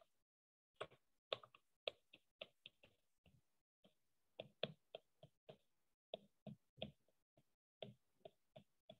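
Stylus tapping on an iPad's glass screen during handwriting: a quick, irregular series of faint sharp taps, about three a second.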